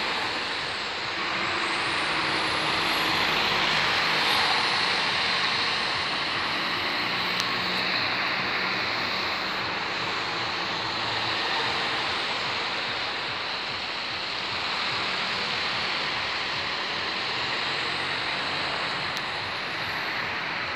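Town traffic on a wet road: a single-deck bus's engine pulling away across a roundabout, with cars passing and a steady hiss of tyres on the wet surface.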